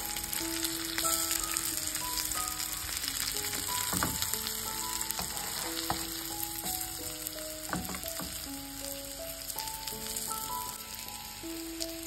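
Flour-dusted chicken breasts sizzling steadily as they fry in melted butter on low heat. There are two sharp knocks of a metal utensil against the pan, about four and about eight seconds in.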